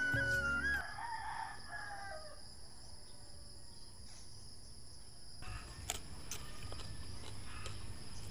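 Background music ends about a second in, and a rooster crows once, its call falling in pitch at the end. Quiet outdoor ambience follows, with a few scattered clicks and knocks in the last few seconds.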